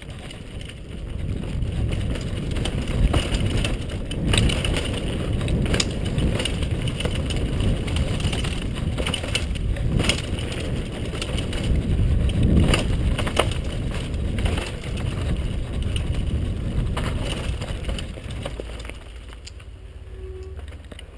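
Downhill mountain bike riding fast down a dirt trail: wind buffeting the microphone, tyres crunching over dirt, and the bike and camera mount rattling and clacking over bumps. It gets quieter over the last few seconds.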